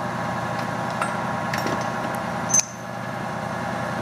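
Clausing variable-speed metal lathe running, its motor and spindle drive giving a steady hum that sounds smooth. A few light clicks, and about two and a half seconds in a sharp click after which the running sound drops a little.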